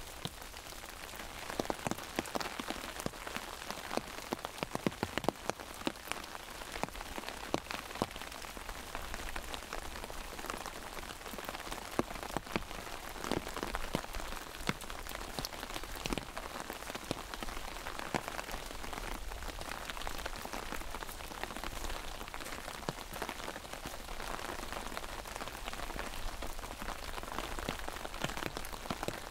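Steady rain falling on an umbrella overhead, an even hiss with many sharp, irregular drop strikes on the canopy.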